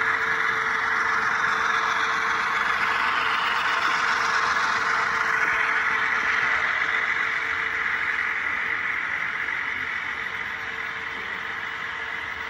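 Model freight train rolling past close by, its diesel locomotives' onboard engine sound running with a steady hum. The sound fades slowly after about eight seconds as the locomotives move on and the trailer-laden cars follow.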